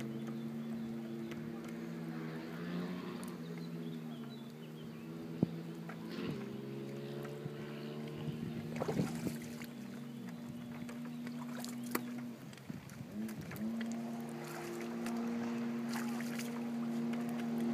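Jet ski engine running at a steady pitch. About two thirds of the way through, its note dips and then climbs back, and a few short knocks sound over it.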